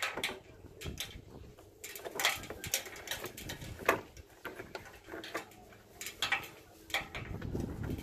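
Irregular clicks and knocks of hands handling plastic parts around the engine cover and air intake duct in an engine bay.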